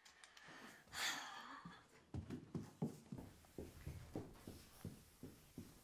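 Footsteps of a child coming down an indoor staircase, about three soft thuds a second, after a brief breathy rustle about a second in.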